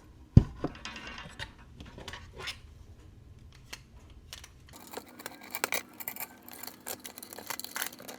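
Small metal clock parts being handled and worked on: irregular clicks and light metallic taps, with one sharp knock about half a second in and busier clicking from about five seconds in.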